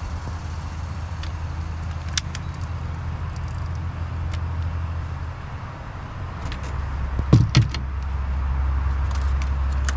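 Steady low motor hum that drops slightly in pitch about six seconds in, with light clicks of fishing tackle being handled and two sharp knocks a little past seven seconds.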